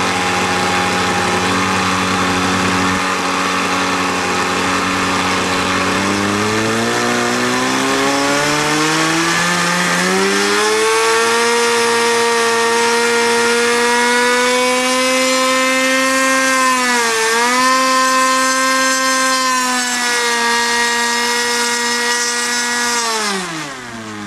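Glow-fuel engine of an RC trainer airplane running with its propeller on a pre-flight run-up. It idles, then is throttled up over a few seconds to a high, steady pitch with a brief dip in the middle, and is throttled back down to idle near the end.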